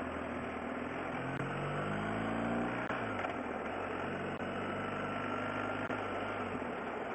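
Motorcycle engine running under way: the revs climb for about two seconds, drop sharply about three seconds in, then hold steady, over wind and road noise.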